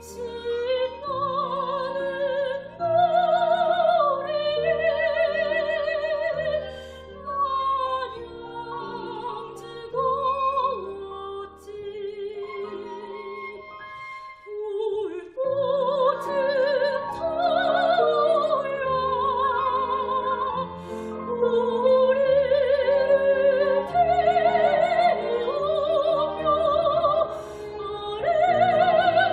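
Soprano singing a Korean art song (gagok) with wide vibrato, accompanied by piano and violin. There is a short lull about halfway through before the voice comes back in.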